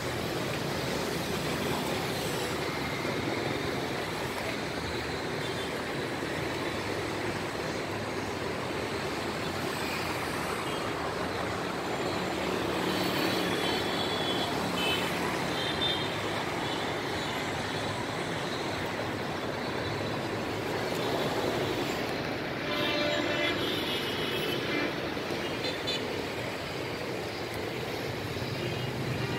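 Steady road-traffic noise from surrounding streets, a continuous hum of passing vehicles, with a brief horn sound a little over three-quarters of the way through.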